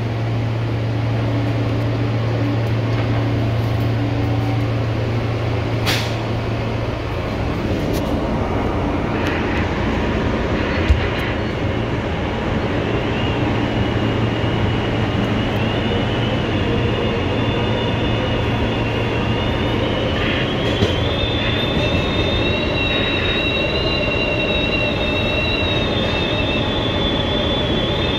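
R160A subway car running along the track, with a steady rumble of wheels and running gear and a low hum in the first several seconds. A sharp knock comes about a third of the way in. From about halfway a high, thin wheel squeal sets in and holds, creeping slightly up in pitch.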